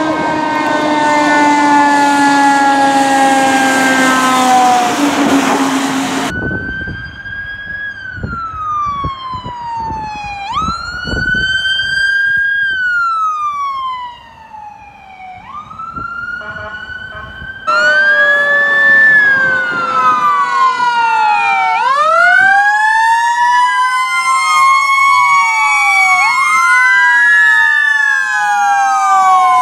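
Fire truck sirens in three separate passes: first a noisy, slowly falling multi-tone siren, then a single siren wailing up and down over engine rumble, and from about two-thirds in several sirens wailing at once and overlapping.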